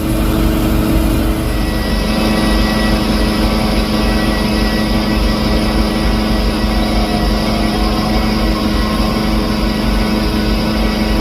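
Large jet aircraft engines running steadily: a deep, continuous rumble with a steady high whine over it.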